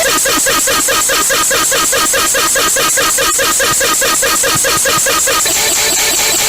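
Emergency alert alarm tone: a loud electronic warble chirping rapidly, about five times a second. About five seconds in, the higher part of the tone drops out and a lower warble carries on.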